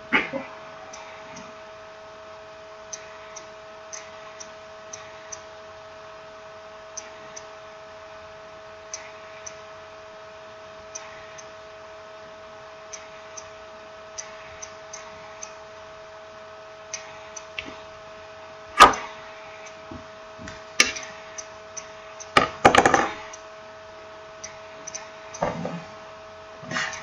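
Steady electrical hum with faint, irregular ticking, and in the second half a few sharp clicks and knocks, with a short cluster of them about two thirds of the way in, from small parts and tools being handled on a work surface.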